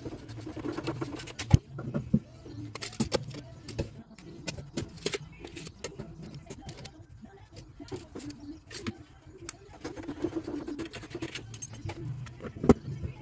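Irregular clicks and clinks of metal plumbing fittings and tools being handled, with two sharp knocks, one about a second and a half in and one near the end.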